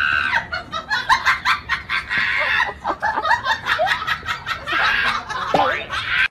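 People laughing hard in short repeated bursts.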